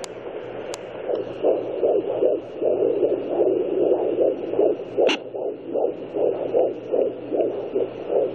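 Unborn baby's heartbeat heard through a handheld fetal Doppler's speaker: a fast, even pulse of about two and a half beats a second over a steady hiss. A sharp click sounds just under a second in and again about five seconds in.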